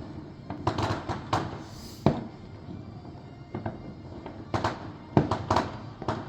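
Fireworks going off: a few bangs about a second in, one sharp bang near two seconds, then a quick run of bangs between about four and a half and five and a half seconds.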